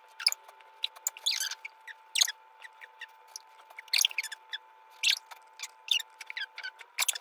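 Felt-tip marker squeaking and scratching across paper in many quick, short strokes as the footage is sped up, over a faint steady high hum.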